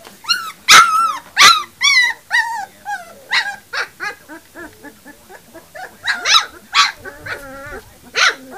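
A litter of three-week-old puppies yipping and whining: a string of short, high yips, the loudest about a second in and again after six seconds, with a wavering whine in between.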